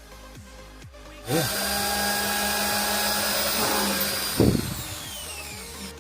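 Electric drill starting abruptly and running at a steady speed for about three seconds, then released with a knock, its whine falling as the motor spins down. Background music with a steady beat plays underneath.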